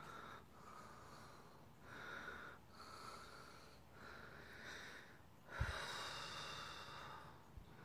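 A person breathing audibly through the nose close to the microphone, a run of faint in-and-out breaths about a second each. A single dull bump from handling or a step about five and a half seconds in.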